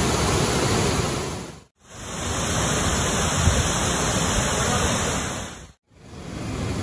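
Rushing water of a river waterfall and its cascading rapids, a steady loud rush of white water. It drops out briefly twice, after about two seconds and again near six seconds, as one shot of falls gives way to the next.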